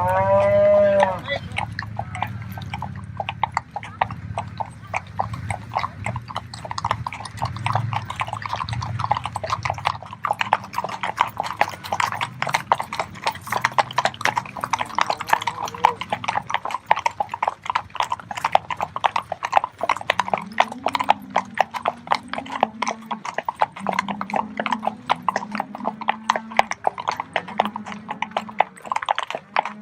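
Many horse hooves clip-clopping in a dense, continuous clatter as the riders move along with the cattle drive. A short, high animal call comes about a second in.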